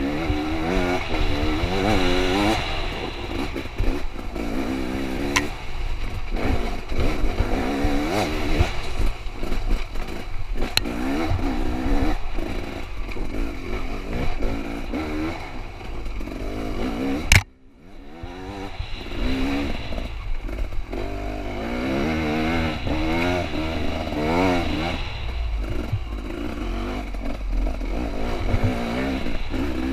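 Two-stroke hard-enduro dirt bike engine heard from the rider's helmet, revving up and down in quick blips over and over as it picks its way over rocks, with stones and the bike clattering underneath. About halfway through a sharp knock is followed by a brief drop-out of the sound, which then picks up again.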